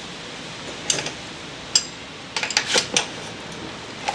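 Scattered metallic clicks and clinks of a tool working on a bicycle pedal, with a quick cluster of them in the middle.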